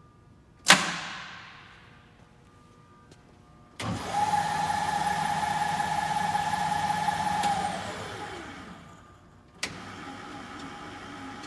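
Hardinge HLV-H toolroom lathe: a sharp metallic clank with a short ring-out, then the spindle runs with a steady whine for about three and a half seconds before it is shut off and winds down, the whine falling in pitch as it coasts to a stop. Another click comes near the end, followed by a quieter steady running sound.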